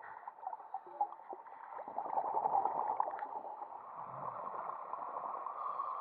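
Scuba diver's exhaled bubbles gurgling underwater, swelling louder about two seconds in, with a few scattered small clicks.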